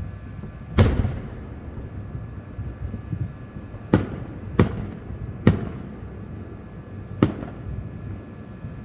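Aerial firework shells bursting: five sharp bangs, the first and loudest about a second in, then three close together around four to five and a half seconds and one more near seven seconds, over a steady low rumble of distant booms.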